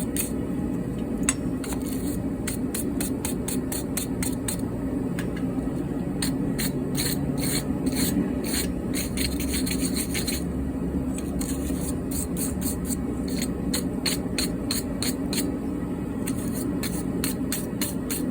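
A hand file rasping on a steel tool in quick back-and-forth strokes, about three to four a second, with a short break near the middle. A steady low hum runs underneath.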